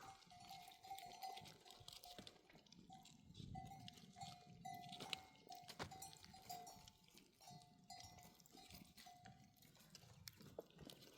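Faint livestock bells on sheep and goats, ringing on and off.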